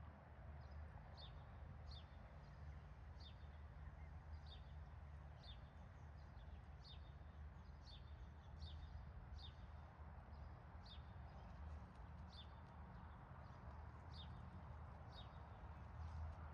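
Faint, high bird chirps, each a short call falling in pitch, repeated at a steady pace of a little more than one a second, over a low steady rumble.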